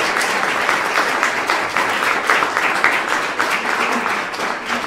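Audience applauding: many hands clapping together in a dense, steady patter that eases a little toward the end.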